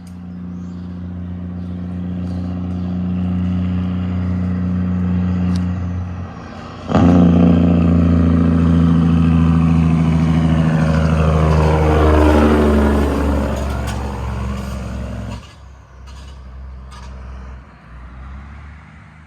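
Semi truck's diesel engine growing louder as it approaches, then, after a brief dip about six seconds in, coming on hard and loud as it accelerates past. It fades away in the last few seconds.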